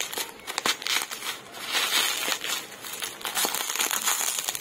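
Plastic bubble wrap crinkling and rustling in the hands as it is pulled open and a small cardboard box is slid out of it, in irregular bursts with scattered crackles.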